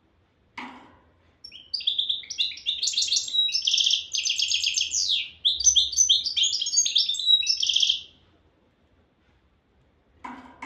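A caged European goldfinch singing one long phrase of about six seconds, a rapid run of varied high notes, trills and buzzy notes. A short knock comes just before the song and another near the end.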